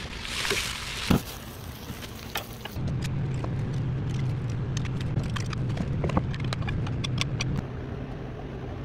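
Food sizzling in a pan on an outdoor grill, with a sharp knock about a second in. After a cut, a steady low hum with repeated metallic clicks as cooked potatoes are pressed through a stainless steel potato ricer.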